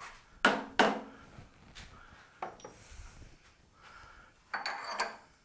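Steel tooling knocking and clinking as a Morse-taper workpiece is handled and fitted into an MT3 extension in the lathe spindle. Two sharp knocks come within the first second, then fainter taps, then a cluster of clinks with a light metallic ring near the end.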